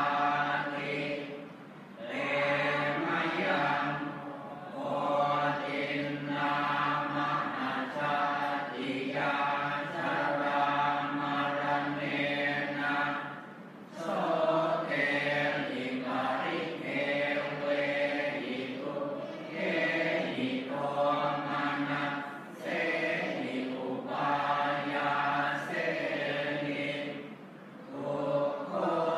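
Thai Buddhist monks and lay followers chanting the morning service together, on a steady low reciting tone, in phrases of a few seconds broken by short pauses for breath.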